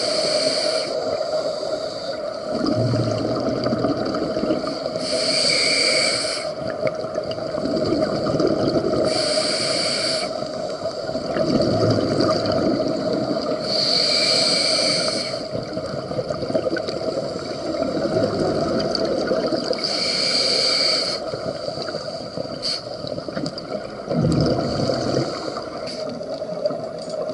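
Open-circuit scuba breathing through a demand regulator underwater: a hiss as the valve delivers air on each inhale, then a bubbling rumble of exhaled air, repeating every four to six seconds over a steady hum.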